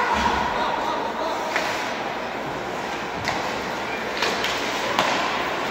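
Ice hockey play in an indoor rink: several sharp knocks of sticks and puck against the ice and boards, the loudest near the end, over a steady hum of spectator voices echoing in the hall.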